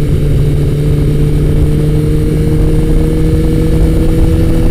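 Motorcycle engine running at a steady cruise, its note holding one even pitch, with heavy wind rush on the microphone.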